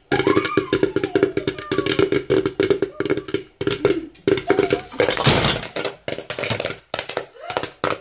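Popcorn popping in a covered pot with a glass lid: a dense, irregular run of sharp pops against the lid and pan, over a steady hum. About five seconds in there is a brief rushing rattle as the pot is shaken.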